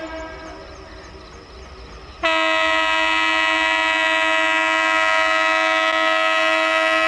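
Electric locomotive's air horn: the echoing tail of a short blast dies away, then about two seconds in a long, steady, loud blast begins as the train approaches.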